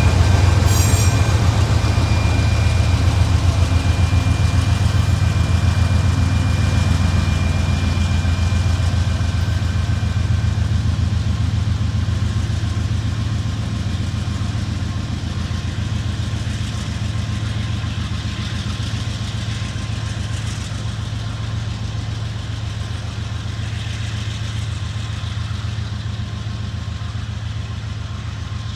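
Diesel-electric locomotives of a freight train running, a deep steady rumble that slowly fades as the train draws away. A thin steady high whine sounds over the first ten seconds or so.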